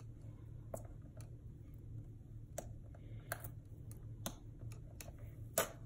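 Fingers picking and peeling sealing tape off a plastic-and-cardboard toy blister package: faint scattered clicks and crinkles, the sharpest about five and a half seconds in.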